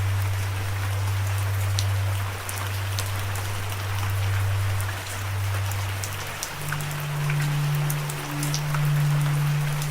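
Steady rain with scattered sharp drop ticks, over a low sustained musical drone. The drone steps up in pitch about two-thirds of the way through.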